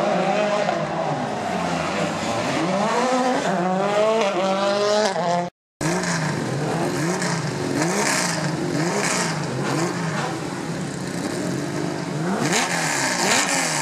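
Rally car engines revved hard through the gears, the pitch climbing and dropping back again and again as the cars shift. An abrupt cut about five and a half seconds in joins two separate passes. A rush of noise comes near the end.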